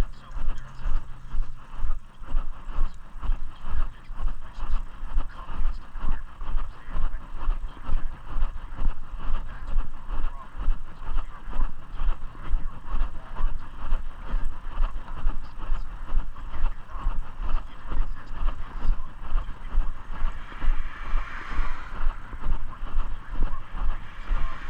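Footsteps of a person walking, low thumps about twice a second, over a steady background noise.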